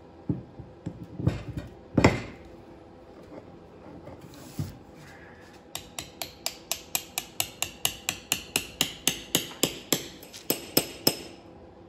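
Small hammer tapping a steel rod or punch against a cast-iron vise body: a few heavier knocks in the first two seconds, then from about halfway a quick, even run of light ringing metal-on-metal taps, about four a second.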